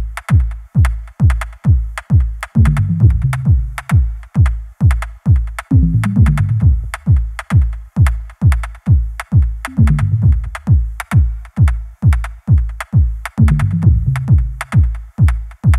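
Electronic dance music track: a steady, fast kick-drum beat with sharp hits on top, and a bass line that comes in for a second or so every few seconds.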